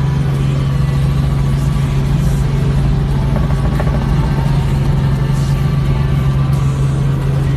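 Helicopter running, a loud steady drone with a strong constant low hum, heard from aboard.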